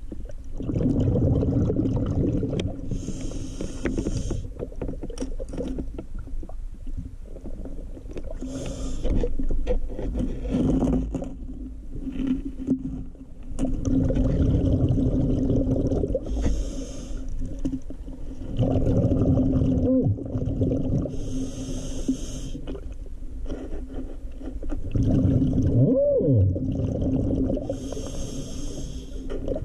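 Scuba regulator breathing heard underwater: a short hiss about every five to six seconds as the diver inhales, between stretches of rumbling exhaled bubbles, over a steady low hum.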